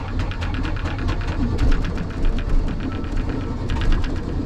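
A MerCruiser inboard-outboard boat engine being cranked over by its starter, turning over in rapid, even pulses with a deep rumble underneath. The cranking stops briefly a little past three seconds in, then starts again.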